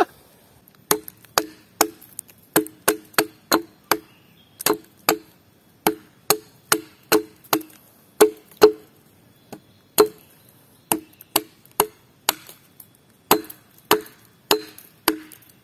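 A blade chopping into wood again and again, sharp knocks with a short hollow ring, about two a second in uneven runs with brief pauses between.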